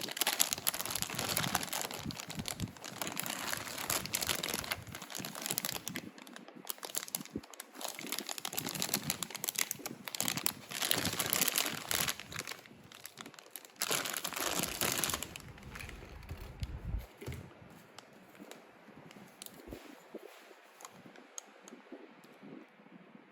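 Packaging being crinkled and torn open by hand, dense and busy for the first fifteen seconds or so, then dropping to quieter, sparser handling.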